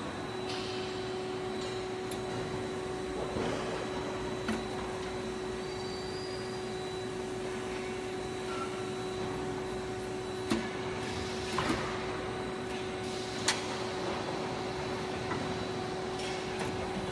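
Steady factory machinery hum holding one constant low tone, with a few sharp clicks and knocks about two-thirds of the way through.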